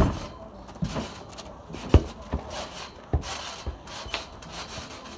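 A football being kicked and bounced on paving: about six dull thuds, the loudest about two seconds in, with scuffing in between.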